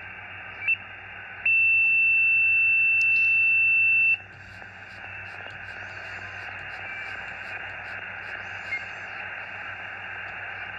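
Xiegu X6100 receiver's audio in USB: band-limited hiss with no antenna connected as the dial is tuned across the 6-metre band. About a second and a half in a loud steady whistle comes in and holds for over two seconds before cutting off, with short chirps before it and fainter brief tones later. These are birdies, spurious signals generated inside the radio itself.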